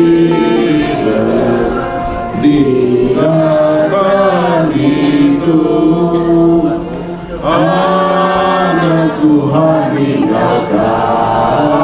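Voices singing a slow Christian hymn in Malay, with long held notes that glide from one to the next.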